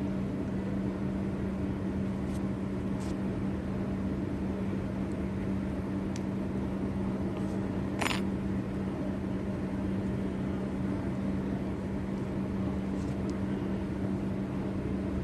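Electric motor running steadily with a hum and a rough, noisy rumble from a bad ball bearing. A single sharp click sounds about eight seconds in.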